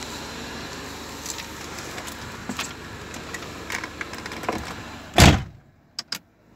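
Mercedes SLK230's driver's door being shut with one heavy thump about five seconds in. The steady outside background drops away sharply once the door closes, and two light clicks follow.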